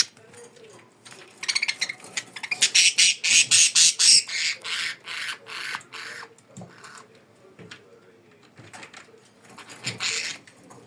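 Budgerigar giving a rapid run of harsh, rasping chirps for about five seconds, then a short burst again near the end.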